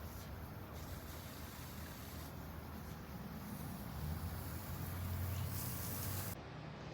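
A steady low mechanical hum with a hiss over it, growing somewhat louder about four seconds in and dropping away sharply near the end.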